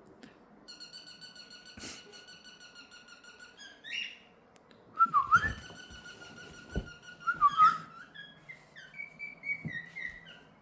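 Cockatiel whistling and chirping: short rising chirps, then two loud warbling calls about five and seven and a half seconds in, and a run of falling chirps near the end. A steady whistle-like tone runs underneath for much of the time.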